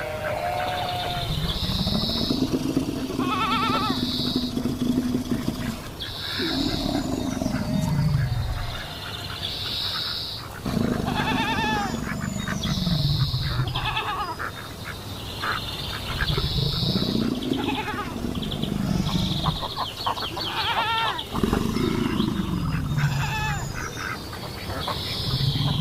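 A busy mix of animal sound effects: goat-like bleats, long low calls that rise and then fall, and short high calls repeating every second or two, overlapping throughout.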